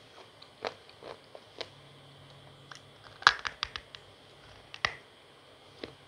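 Close-up bites into a dry, powdery chunk of clay: a few sharp, separate crunches, with a quick cluster of several crunches a little over three seconds in.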